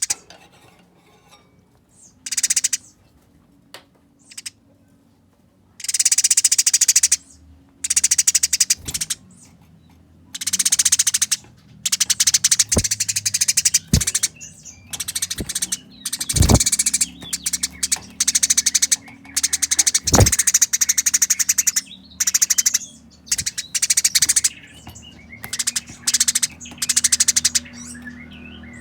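Eurasian tree sparrows fighting, giving fast, harsh, dense chattering calls in bursts of about a second. The bursts are scattered for the first few seconds, then come close together.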